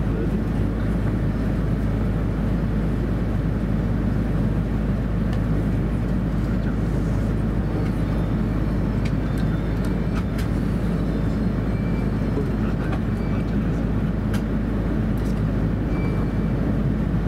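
Steady low rumble and hum of an E2 series Shinkansen heard from inside the passenger car as it runs slowly along the station platform, with a few faint clicks.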